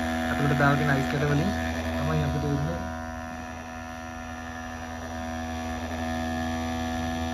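Small DC motor spinning a hand-cut plastic fan blade in a homemade bottle air cooler, running with a steady electric hum and whine.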